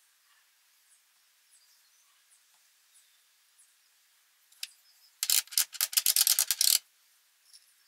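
Rapid back-and-forth rubbing strokes from hand abrasive work on a metal part, about ten strokes a second for a second and a half, starting about five seconds in, with a single scrape just before. Faint high chirps sit underneath.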